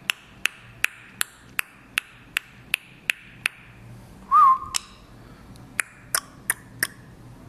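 A run of sharp clicks, about two or three a second, with a short whistle about four seconds in that rises, then holds briefly. Two more quick bursts of clicks follow near the end.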